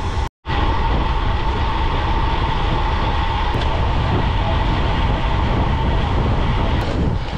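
Wind rushing over a bicycle-mounted action camera's microphone, mixed with tyre and road noise from a road bike rolling along at speed. The sound drops out for a split second just after the start, then carries on steadily.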